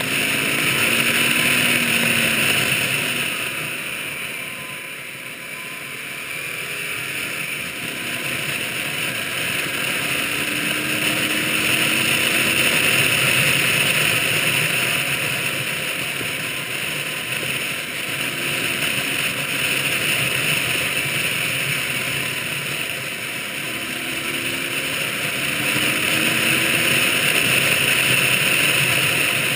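Motorcycle being ridden on the road, heard from a camera on the bike: steady wind rush over the microphone with the engine running underneath, its pitch gliding up and down as the rider accelerates and eases off. The overall level swells and dips slowly, quietest about five seconds in.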